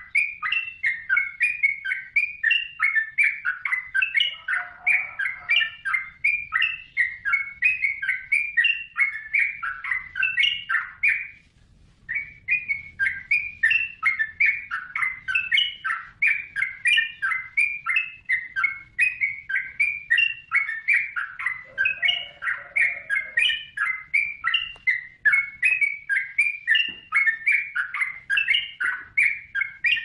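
Yellow-vented bulbul (trucukan) singing lustily: a continuous run of rapid, bubbly chirping phrases, with a short pause about eleven seconds in.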